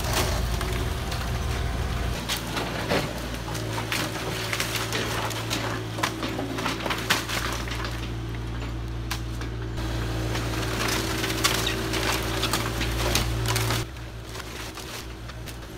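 Kubota KX040-4 mini excavator's diesel engine running steadily while its claw crushes and snaps the wooden framing of a demolished house: repeated cracking and splintering of timber. The sound drops abruptly near the end.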